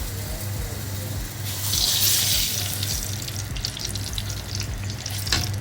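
Cooking oil being poured into a pan, a hiss of pouring liquid about one and a half to three seconds in, over a steady low hum.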